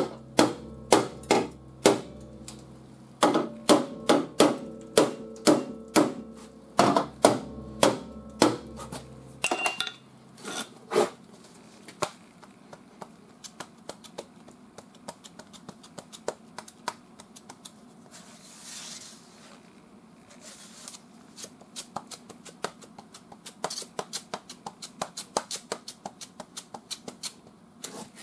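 Hammer tapping down flux-core welds on a 20-gauge steel patch panel in a car fender: sharp metallic taps, about two or three a second, over a steady low hum that stops about ten seconds in. After that, quieter scraping and light ticking as body filler is spread over the patch with a spreader.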